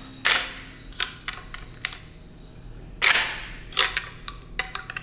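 Suppressed .45-70 lever-action rifle (Mad Pig Customs build with a SilencerCo Hybrid 46 can) fired twice, about three seconds apart, each shot a short sharp report with a brief ring of the room. Between and after the shots come lighter metallic clicks and clacks of the lever action being worked.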